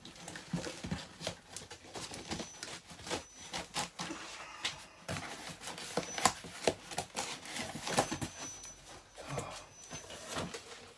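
Cardboard delivery boxes and record sleeves being handled: box flaps folded and the box shifted, with rustling and scraping and irregular knocks and taps.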